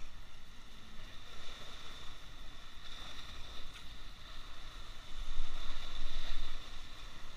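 Sea waves washing and breaking against shoreline rocks, a steady rushing hiss. A louder low rumble lasts about a second and a half, starting about five seconds in.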